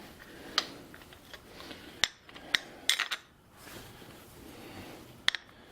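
Metal clicks and clinks of a wrench on the lock nut of an angle grinder's spindle as the nut holding the wheel is tightened: a handful of sharp, irregularly spaced taps.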